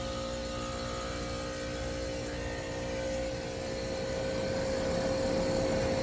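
Air-conditioning condensing unit running, its compressor humming steadily with a held tone and getting a little louder toward the end. The compressor has started and is running on a newly fitted dual run capacitor with a hard start kit, its start wire now reconnected.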